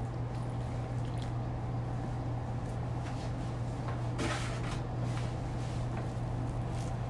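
Hands squishing and kneading a wet flour-and-water mix in a glass bowl, giving a few short rustling squelches, the loudest about four seconds in. A steady low hum runs underneath throughout.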